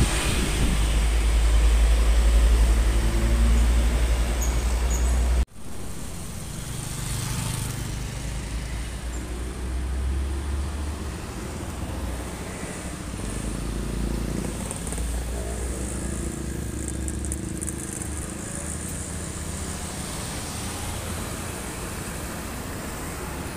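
Highway traffic with heavy container trucks and motorcycles passing. A loud low rumble for the first five seconds cuts off abruptly, then steadier, quieter road noise follows.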